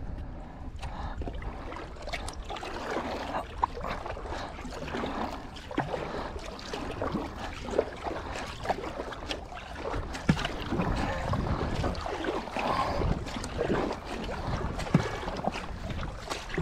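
Water splashing and dripping from a double-bladed paddle as a surfski is paddled on calm lake water, with many small irregular splashes. A low wind rumble on the microphone runs underneath.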